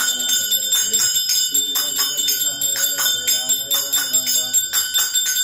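Hand bell rung steadily in a regular rhythm during Hindu arati worship, with voices singing the arati along with it.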